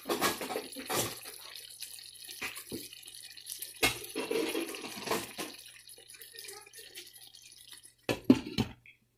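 Fish curry bubbling and spluttering as it simmers in a non-stick frying pan, in irregular spurts and pops. Near the end a glass lid is set on the pan with a few sharp clatters.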